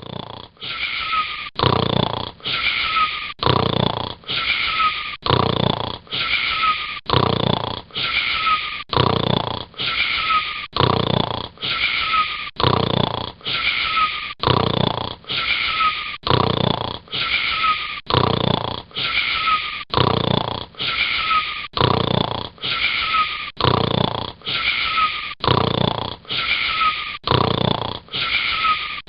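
Snoring with a whistling wheeze in each breath, repeating very evenly about once a second.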